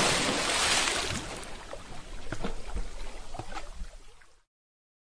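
Liquid-splash sound effect: a wet splashing rush fading out, with scattered drip and spatter sounds, then cutting off to silence about four seconds in.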